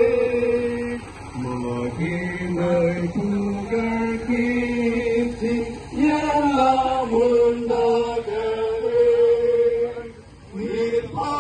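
Voices of a walking church procession singing a slow, chant-like hymn, with long held notes that step from pitch to pitch and a short break about ten seconds in.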